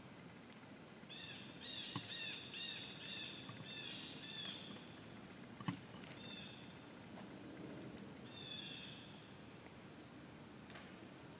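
Woodland sounds: a steady high insect drone, with a bird calling in quick runs of short repeated notes, about three a second. Two sharp snaps come about two and about six seconds in, the second the loudest sound.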